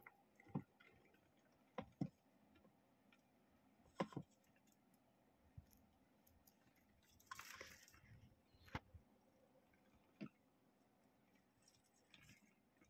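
Mostly near silence, broken by a few faint, sharp ticks and taps and one brief scratchy rustle about halfway through, from a harvest mouse scrambling over branches and leaves and across the enclosure's plastic floor.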